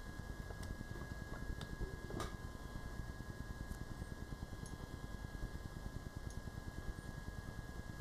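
A few light fingertip taps on a tablet's touchscreen, the clearest about two seconds in, over low steady room noise with a thin steady whine.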